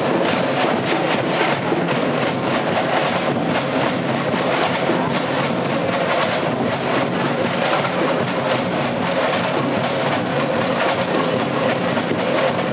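Loud, dense drum-and-percussion playing a steady rhythm to accompany a tribal street dance.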